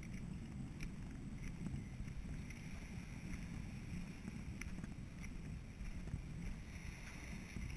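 Steady low rumble of wind on the microphone of a handheld camera being carried along, with a few faint clicks scattered through it.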